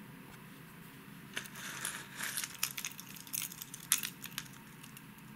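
Hard plastic crankbait wobblers with treble hooks being handled on a wooden table: a run of light clicks, taps and rustles as a lure is picked up, with one sharper click a little past the middle.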